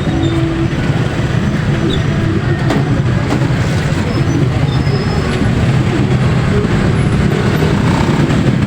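Steady engine and road noise of a moving vehicle, a continuous low rumble.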